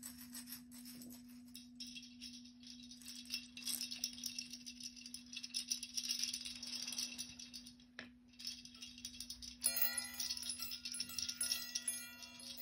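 A shaker rattling softly in an even hiss; after a short pause and a click, several small bells ring, clear tones sustained and overlapping. A steady low hum runs underneath.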